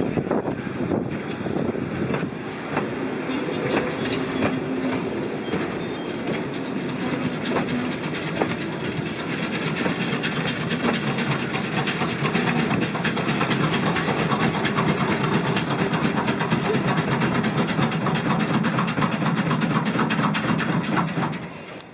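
Steam-hauled passenger train on the move, with RX 207 at its head: a steady rumble of the carriages and a dense run of clicks and clatter from the wheels on the track, growing a little louder in the second half.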